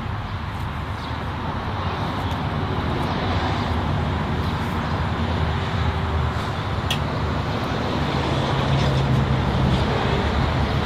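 A motor vehicle on the road: a steady engine drone under road and wind noise, slowly growing louder.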